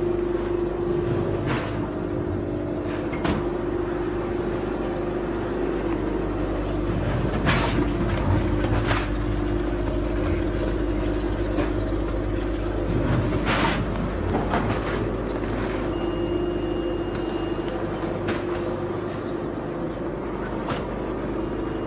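Automatic vertical packing machine running: a steady mechanical hum and rumble with irregular sharp clacks every second or two. A brief high-pitched tone sounds about three-quarters of the way through.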